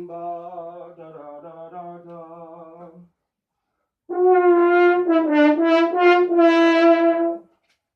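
Valved brass horn (an Opus USA) playing a short phrase of several sustained notes. A quieter pitched phrase comes first; after a short pause a much louder phrase follows and stops near the end.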